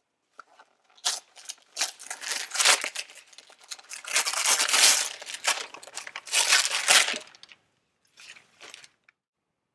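Gift wrapping paper being torn and crumpled as a present is unwrapped: a run of ripping and rustling for several seconds, then two short rustles near the end.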